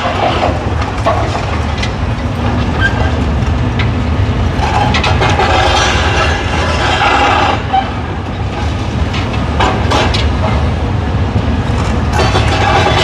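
Demolition excavator's engine running under load, with a few sharp clanks and knocks from the attachment working the debris in the second half.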